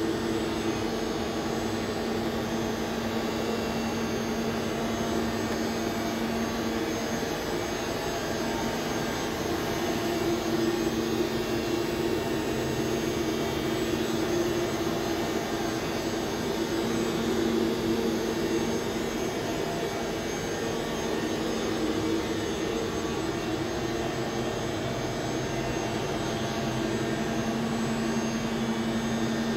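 Boehringer DUS 630 ti cycle lathe running, a steady machine hum from its drive motor and spindle with a few constant tones and no change in speed.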